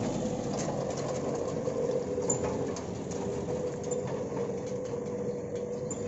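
Mitsubishi L300 pickup driving off, its engine running through a reworked 'wolf' (serigala) exhaust with a steady drone and a held humming tone. It gets a little quieter after about three seconds as the truck moves away.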